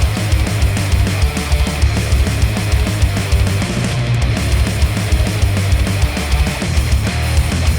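Heavy rock music with rapid, driving bass-drum hits, played through a pair of headphones and picked up by measurement microphones.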